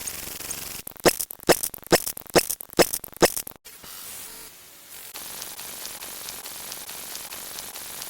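A series of six sharp clicks or knocks, about two a second, between stretches of steady hiss.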